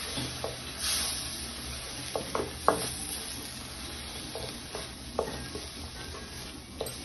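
Onion-tomato masala sizzling in a metal kadai while a wooden spatula stirs it. The masala has a splash of water added so it won't stick. The spatula scrapes and taps against the pan now and then.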